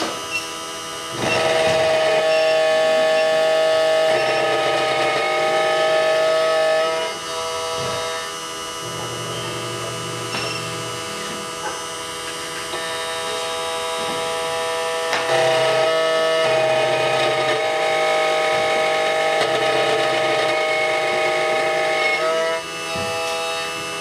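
SEC-E9 automatic key cutting machine milling an HON66 key blank: a steady motor whine with lower humming tones that shift in pitch as the machine moves. It grows louder in two long stretches, starting about a second in and again at about fifteen seconds.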